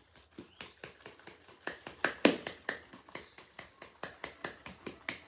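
Aerosol can of whipped cream being shaken hard by hand before spraying: a quick, even run of short knocks and sloshes, about four a second.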